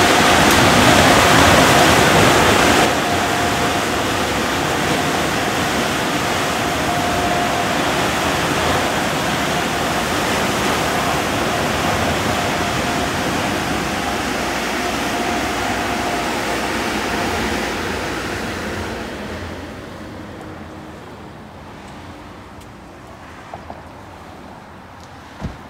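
Automatic car wash running: a loud, steady rush of high-pressure water spray and blowers. It drops a little about three seconds in and fades away near the end.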